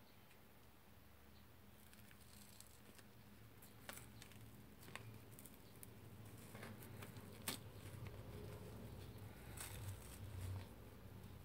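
Dried-out old slime crackling and tearing as fingers press and pull it apart in a plastic tub: a faint run of small clicks and pops that starts about two seconds in.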